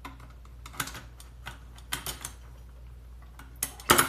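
Scattered metal clicks and clacks of an SKS trigger group being worked into the receiver, its tabs seating into the ears. The loudest clack comes near the end as it drops into place.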